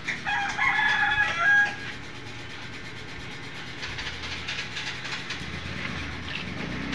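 A rooster crowing once, a pitched call about a second and a half long near the start, over a steady low background hum.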